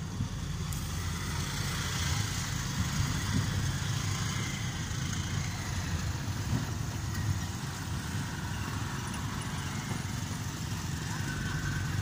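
Car driving slowly on a rough dirt road, heard from inside the cabin: a steady low engine and road rumble, with surrounding traffic coming in through the open window.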